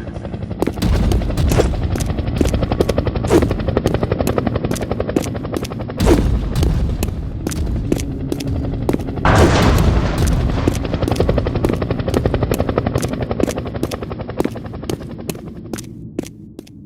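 Battle sound effects: rapid automatic gunfire with heavy explosions, the first loud blast about a second in and others near the middle. The fire thins out and fades near the end.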